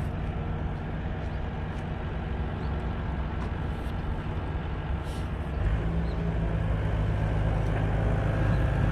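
An engine running steadily; about five and a half seconds in it speeds up to a higher, louder run.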